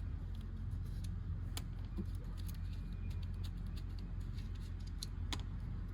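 A few light, scattered clicks and taps of bolts and hand tools being handled, over a steady low hum.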